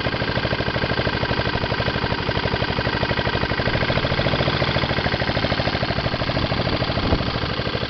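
Honda GCV135 single-cylinder overhead-cam petrol engine on a push lawn mower, running steadily with an even, fast firing pulse. One brief louder tap comes near the end.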